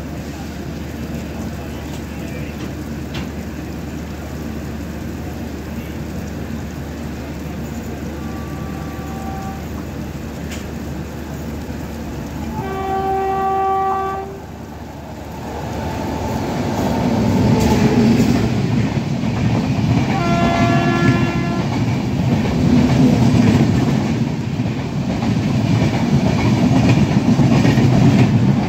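An approaching Indian Railways electric locomotive sounds its horn: a faint short blast about eight seconds in, a loud blast about thirteen seconds in, and another about twenty seconds in. From about sixteen seconds in, the Rajdhani Express coaches rumble and clatter past on the adjacent track, close by.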